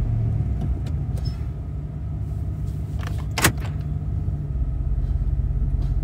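2012 Chevy Silverado engine idling, heard from inside the cab, its revs coming down to a steady idle. A single sharp click comes about three and a half seconds in.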